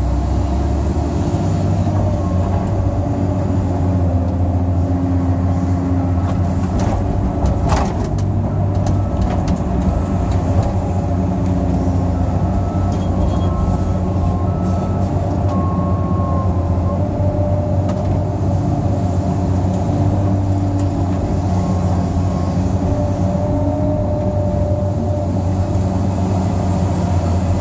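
Cat 385C L excavator's C18 diesel engine running steadily under load, heard from inside the cab while digging and loading topsoil. Short whining tones from the hydraulics come and go as the boom, stick and bucket are worked, and there is one sharp knock about eight seconds in.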